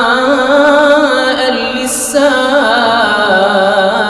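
A man's voice chanting Quran recitation in a melodic tajweed style, holding long ornamented notes that waver in pitch. The voice breaks off briefly about two seconds in, then goes on.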